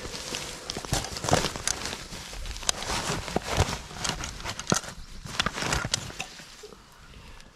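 Rummaging in a nylon backpack: fabric rustling and scraping, with a series of light knocks as a metal mess kit is pulled out. The handling dies down near the end.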